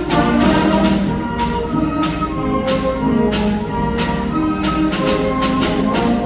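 Student concert band playing: brass and woodwinds sustain chords over repeated drum and cymbal hits.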